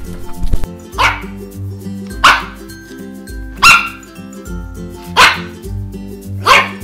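Electronic plush toy dog barking, five short yaps evenly spaced about a second and a half apart, over background music.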